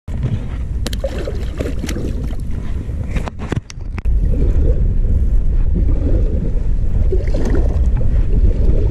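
Strong wind buffeting the microphone, with water sloshing against the kayak. There are a few sharp knocks about a second in and again around three and a half seconds in, and the wind gets louder about four seconds in.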